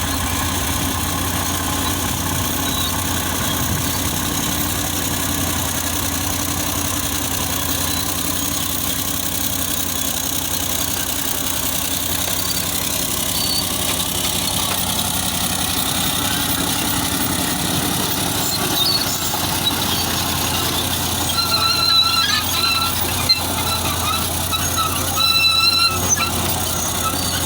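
Caterpillar D8 bulldozer's diesel engine running steadily under load. In the last few seconds, short high-pitched squeals come and go over the engine.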